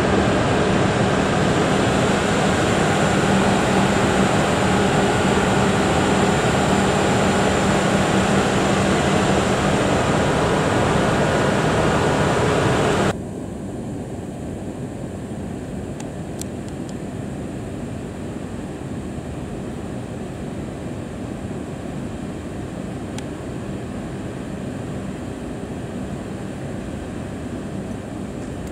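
JR ED75 AC electric locomotive with its train of flatcars: a loud, steady rushing noise with a held low hum, which cuts off suddenly about 13 seconds in. A quieter steady hum follows, from the locomotive standing at the platform, with a couple of faint clicks.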